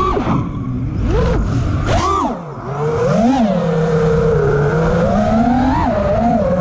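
Brushless motors and propellers of a 6S five-inch FPV freestyle quadcopter, heard from its onboard camera, whining in a pitch that rises and falls with the throttle. There are two short throttle chops, about half a second in and about two and a half seconds in, each followed by a sharp climbing punch. The rest is a steadier whine with small blips.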